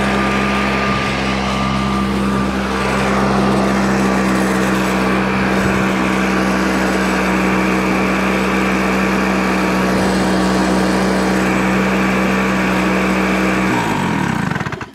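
Flymo hover mower's small two-stroke Tecumseh engine running steadily at a high even speed. Near the end it slows, dropping in pitch, and stops.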